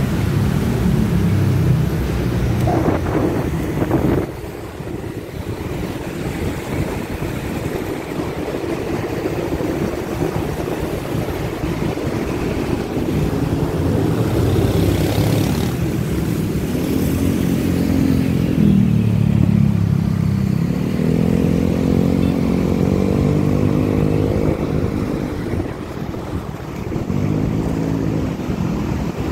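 Small motor scooters running in close city traffic. The engine note rises and falls several times as they speed up and slow down, over a steady rush of road and wind noise.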